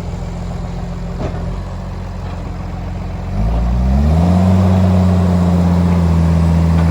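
Case 850L crawler bulldozer's diesel engine running steadily at low speed, then revving up about three seconds in and holding at a higher, louder speed.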